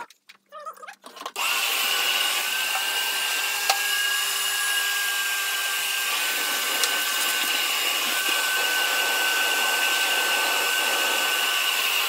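Vacuum cleaner switched on about a second in and running steadily with a high motor whine, ready to suck up water draining from the boiler's heat plate.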